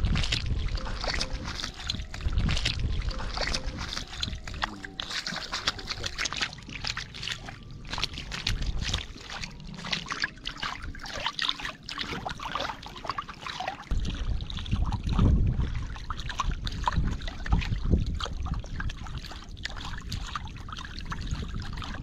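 Fish thrashing in shallow, muddy water, making a quick, irregular run of splashes and slaps.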